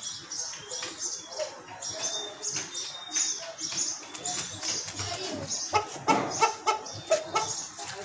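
Black Aseel chickens clucking, with a rooster flapping its wings, over a fast high chirping that repeats throughout. The clucks and sharp flapping strokes are densest and loudest in the second half.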